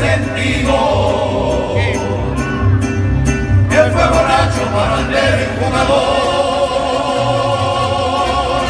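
Mariachi band playing the closing bars of the corrido over a rhythmic bass line, ending on long held notes in the last few seconds.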